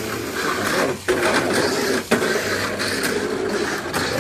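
Mini 4WD cars running on a multi-lane plastic track: the small stock electric motors whir while the cars rattle along the lanes, with two brief dips in the sound about a second and two seconds in.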